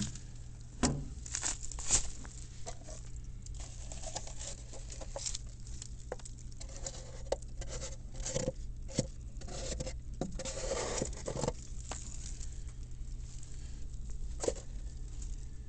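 Irregular crackles, ticks and light knocks from the open reaction chamber of a Central Boiler E-Classic outdoor wood furnace, where glowing coals sit with water standing in the chamber, over a steady low hum.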